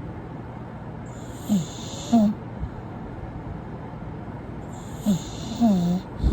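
English bulldog snoring: two snoring breaths about three and a half seconds apart. Each is a hissing rasp with short low tones that fall in pitch.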